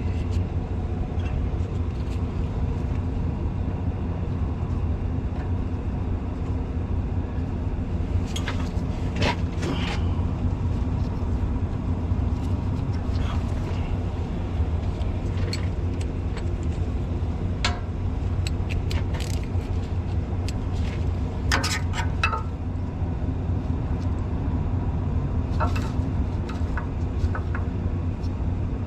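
Steady low machine hum, with scattered light metallic clicks and clinks from hand tools on engine parts. The clicks come in small clusters, one about a third of the way in and another about three quarters of the way in.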